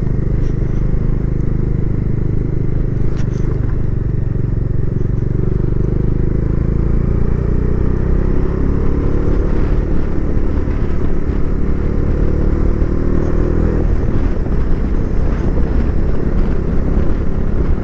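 Motorcycle engine running steadily while riding, heard from the bike itself. The engine note climbs slowly through the middle and drops about fourteen seconds in.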